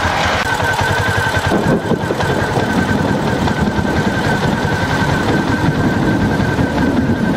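Suzuki GN250's single-cylinder four-stroke engine idling, a rapid even beat of firing pulses heard close to the engine. The low end grows fuller about a second and a half in.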